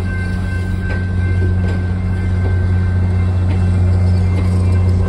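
Cape Cod Central bilevel passenger coaches rolling past at close range: a steady low hum with occasional sharp clacks of the wheels over rail joints, growing slightly louder toward the end.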